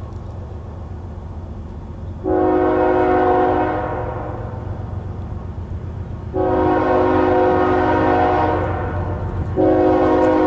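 Approaching diesel locomotive's air horn sounding three blasts, the first two long and the third starting near the end, over a steady low rumble of the oncoming train.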